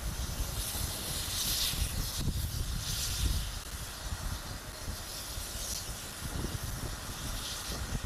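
BR Standard Class 7 'Britannia' Pacific steam locomotive No. 70000 Britannia starting away with its train, steam hissing from the cylinder drain cocks in four slow bursts. Wind rumbles on the microphone underneath.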